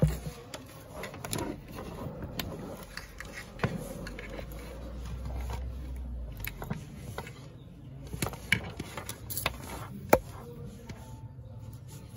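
Handling noise from cables and plugs being moved about on a work surface: scattered small clicks, taps and scrapes, with one sharper click about ten seconds in and a low rumble for a couple of seconds in the middle.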